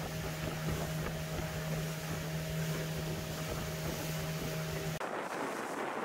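Motorboat engine running at a steady pitch, with wind on the microphone. About five seconds in the engine sound cuts off abruptly, leaving only wind and water hiss.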